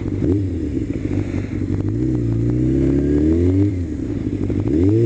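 Honda CBR600F4 motorcycle's inline-four engine accelerating as the bike pulls away, its pitch climbing, dropping at a gear change about three and a half seconds in, then climbing again near the end.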